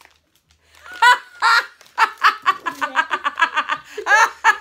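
A woman and a young boy laughing together. They start after about a second of quiet, and the laughter comes in quick, regular pulses.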